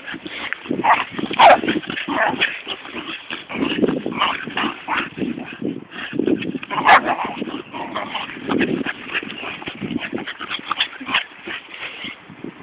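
Tibetan terriers in boisterous play, making a fast, irregular string of short dog vocalisations: yips, barks and whines, often several a second.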